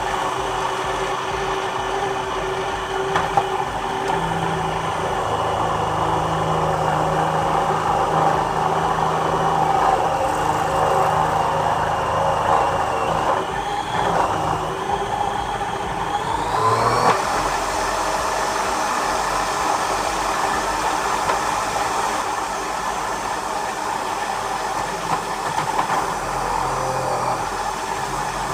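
Kenwood Cooking Chef KM 096 food processor attachment running steadily, its motor driving the fine grating disc as potatoes are grated to a pulp. A little past halfway the motor's pitch rises sharply.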